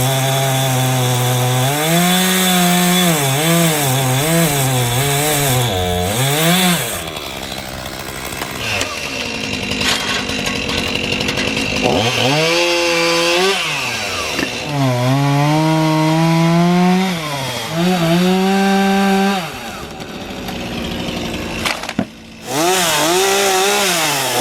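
Stihl two-stroke chainsaw running at high revs while cutting into a maple tree. Its pitch sags and recovers as the chain loads in the wood, and it eases off between cuts.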